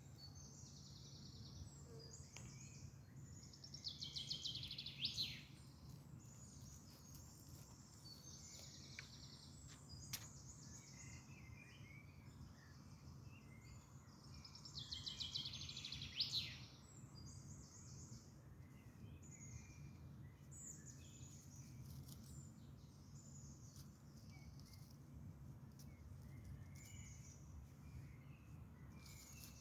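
Faint songbirds singing in short repeated chirping phrases, with two louder fast trills that fall in pitch, about four seconds in and again around fifteen seconds, over a steady low hum.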